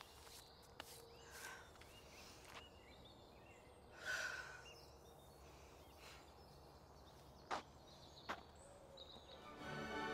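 Faint, quiet outdoor ambience with a few soft chirps and a brief exhale about four seconds in; music starts to swell in near the end.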